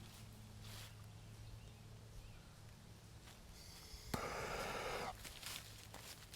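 A sharp click about four seconds in, then about a second of hissing, as the next penny firecracker is lit.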